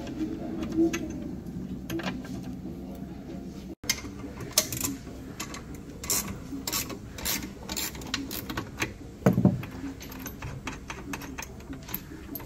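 Hex key and spanner clicking and clinking against the bolts of a steel rowing-machine frame as a nut is worked loose, in irregular sharp ticks, with one louder knock about nine seconds in.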